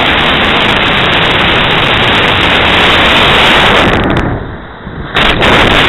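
Loud, steady rushing air and flight noise from a camera riding on a model rocket in flight. It eases for a moment about four and a half seconds in, then returns choppy.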